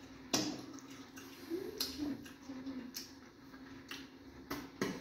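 Eating sounds from fufu and egusi soup eaten by hand: a handful of short, sharp wet clicks and lip smacks at irregular intervals, over a faint steady hum.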